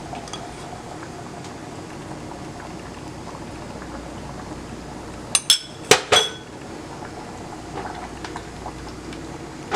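Pot of lima beans simmering with a steady bubbling, with a few sharp clinks of a utensil against the pot a little past halfway.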